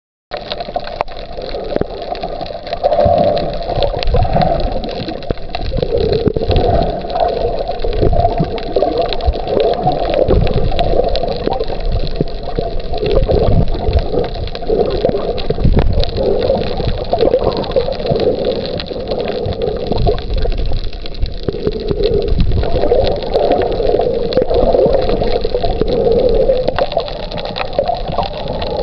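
Muffled underwater water noise picked up by a camera below the surface: a steady gurgling wash with low rumbles that never lets up.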